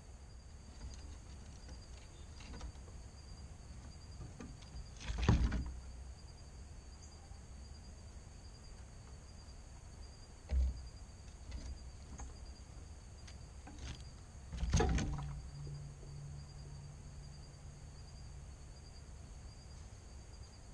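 A few scattered thumps and rustles, three of them louder (around five, ten and fifteen seconds in), most likely squirrels jumping and scrambling on the wooden feeding table and fence, with a faint steady high-pitched hum underneath.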